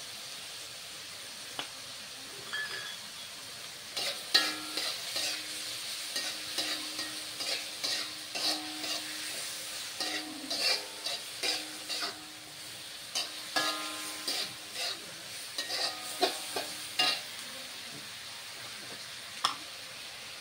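Pork and onions sizzling in a wok in sweet soy sauce. From about four seconds in until near the end, a spatula scrapes and clicks against the wok as the food is stirred.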